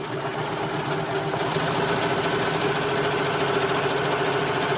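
Brother 1034DX overlock machine (serger) stitching and trimming a fabric edge on a test run. It picks up speed over the first second or two, then runs at a steady pace.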